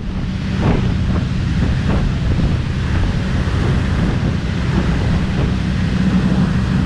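Wind buffeting the microphone aboard a moving boat, over rushing water and the steady low drone of the boat's engine.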